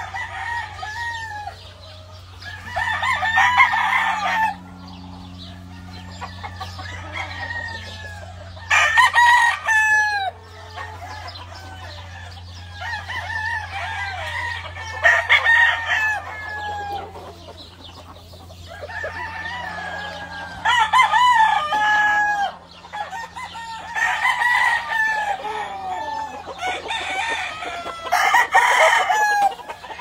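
Gamefowl roosters crowing again and again: six loud crows close by, with fainter crowing from other birds in between. A steady low hum runs underneath.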